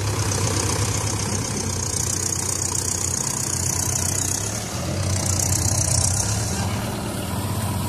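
Mahindra 475 DI SP Plus tractor's four-cylinder diesel engine running hard while the tractor is stuck in deep paddy mud. The engine pushes in two long surges, with a short dip about four and a half seconds in.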